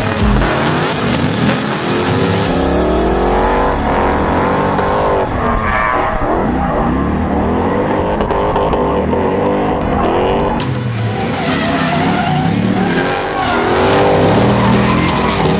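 Drift cars' engines revving hard and repeatedly rising and falling in pitch as they slide through corners, with tyres skidding and squealing.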